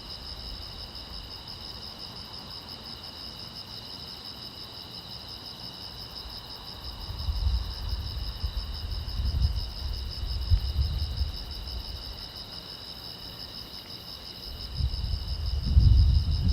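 Crickets chirping in a steady, continuous chorus, several insects at different high pitches. Irregular bursts of low rumble come in about halfway through and again near the end, louder than the crickets.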